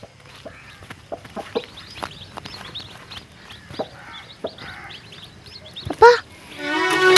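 Village ambience of chickens clucking and small birds chirping, with one loud call that falls in pitch about six seconds in. Near the end a held violin note begins.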